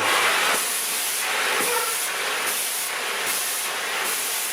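Shark NZ801UK upright vacuum cleaner running with the upholstery tool on its hose: a steady rush of suction air, its high hiss rising and falling about twice a second.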